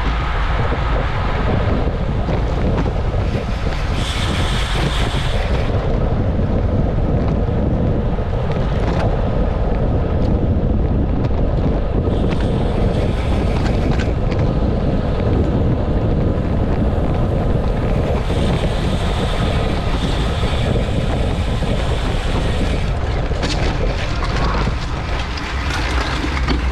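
Wind buffeting the microphone of a bike-mounted camera at racing speed, a steady loud rush. It eases slightly near the end as the pace drops.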